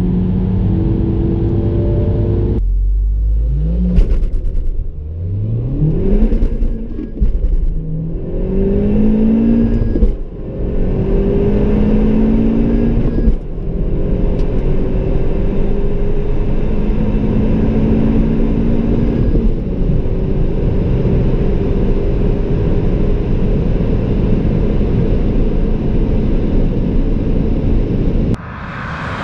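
Honda Civic Type R Limited Edition's turbocharged four-cylinder heard from inside the cabin under full acceleration. Its note climbs and drops back through four quick upshifts, then runs steadily at high speed. In the first couple of seconds, a different car's engine is heard at speed.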